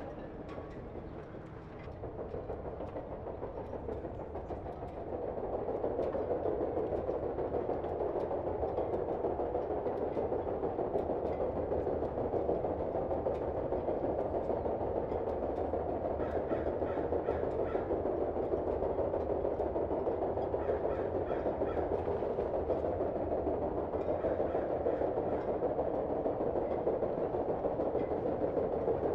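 Sound-effect steam engine of a steam tug running steadily, a dense mechanical chugging that grows louder about two seconds in and again about five seconds in, with faint regular ticking in places.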